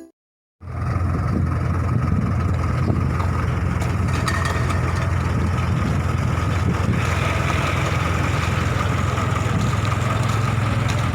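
Case 580K backhoe loader's diesel engine running steadily, with a low even drone; it comes in about half a second in, and a slightly brighter edge is added from about seven seconds in.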